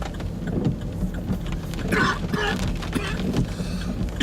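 Two chesty coughs in quick succession about two seconds in, from someone with a cold, over the steady rumble of a car's cabin.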